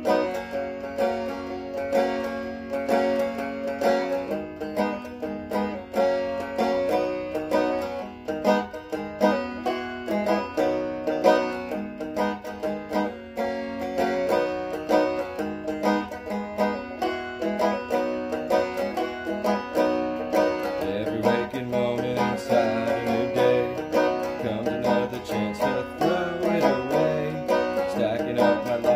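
Banjo picking with a steady stream of quick plucked notes, no singing. About two-thirds of the way through, lower notes come in under the picking.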